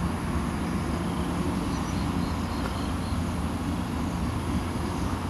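Steady low rumble with faint, short high chirps above it.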